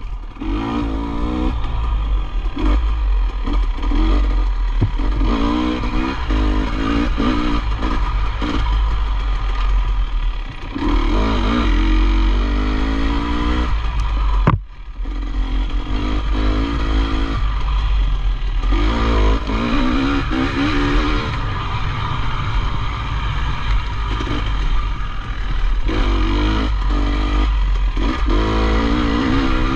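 Off-road motorcycle engine under race load, revving up and easing off again and again as it climbs through the gears, with a rattling clatter over it. About fifteen seconds in there is a sharp knock, and the engine briefly drops away before pulling again.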